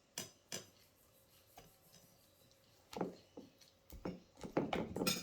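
Freshly formed homemade slime being worked in a bowl, with short sticky rubbing and clicking sounds. A couple come early, then a run of them from about three seconds in.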